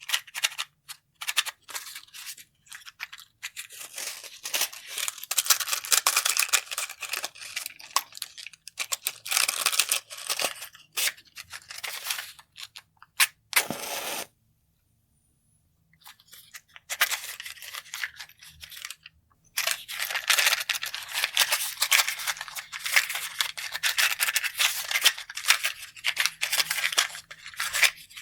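Matches and a matchbox being handled: quick runs of rattling, clicking and scraping of matches in the box. Just before halfway there is a short loud burst, followed by a couple of seconds of silence and then a fainter hiss before the rattling and scraping resume.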